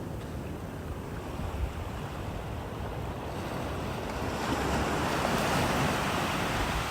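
Ocean surf breaking on a beach: a steady low rumble, with a wave's wash swelling from about halfway in and easing slightly near the end. Wind buffets the microphone.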